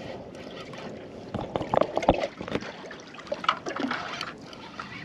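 Water splashing and trickling, with a burst of louder knocks and splashes about one and a half to two and a half seconds in, and a few smaller ones later.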